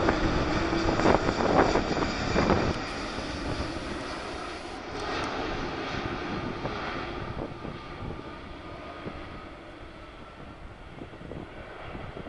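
Airbus A330 airliner's twin jet engines on final approach with gear down, heard from behind after it passes overhead. The engine noise fades steadily over about ten seconds as the aircraft moves away toward the runway.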